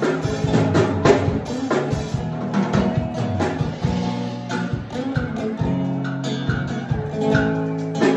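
Instrumental band passage with guitar, bass and drum kit playing a steady beat, between sung verses.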